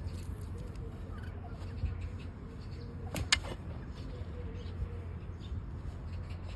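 Overgrown donkey hoof being pared with a hoof-trimming blade: soft scraping and cutting over a low steady hum, with one sharp click a little past three seconds in.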